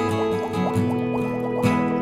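Background music with a steady beat and a bass line, dotted with quick, short rising blips.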